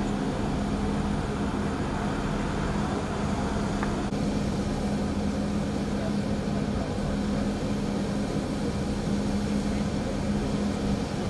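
Steady engine drone with a constant low hum, unchanging in level and pitch, as from an engine idling at the crash scene.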